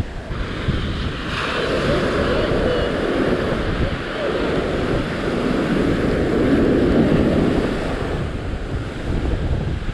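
Ocean surf breaking and washing up a sandy beach, swelling and easing, with wind buffeting the microphone.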